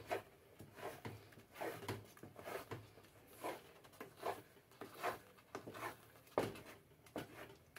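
Wooden spoon stirring thick natilla (cornflour custard) in a nonstick pot: faint scraping strokes about once a second.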